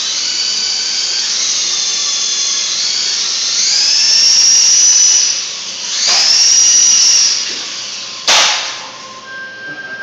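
Small electric RC helicopter's motors and rotor whining, the pitch rising and falling as the throttle changes. The whine dips, comes back, then fades, and about eight seconds in there is a single sharp clack as the helicopter strikes something and drops to the floor.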